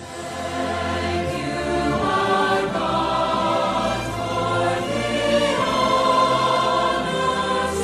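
Film score opening: a choir singing sustained chords over an orchestral backing with a steady low bass, fading in at the start.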